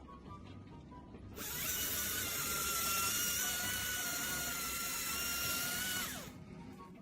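A power tool motor starts about a second in and runs with a steady high whine for about five seconds, then winds down. Quiet background music underneath.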